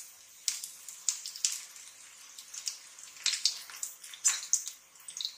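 Hot oil sizzling and crackling in a non-stick frying pan as squares of wheat-flour and potato dough shallow-fry, with irregular sharp pops and spatters.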